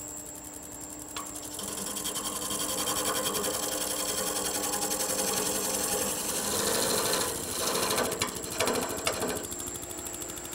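Wood lathe spinning a rough, out-of-round spindle blank at about 600 rpm while a chisel cuts into it, making a fast, even chatter over a steady motor whine. The cutting grows louder about a second in.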